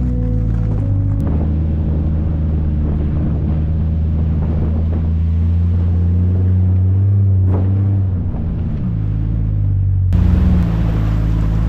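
Jeep Grand Cherokee ZJ engine running steadily under way on a snowy trail, with a brief drop in pitch about eight seconds in. A sudden change in the sound near the end, like a cut to another shot.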